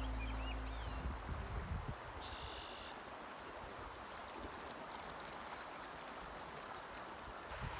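Steady rush of a fast-flowing creek, with a short high-pitched call about two and a half seconds in.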